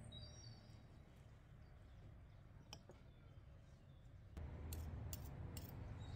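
Metal fork and spoon clicking lightly against a glass plate during eating, a few scattered clicks. A low steady rumble comes in about four seconds in.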